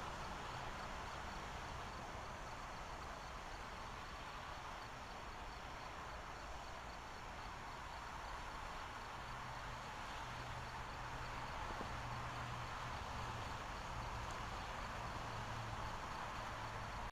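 Outdoor background at a trackside live camera: insects chirping in a steady, even pulse over a low hum that grows a little stronger in the second half.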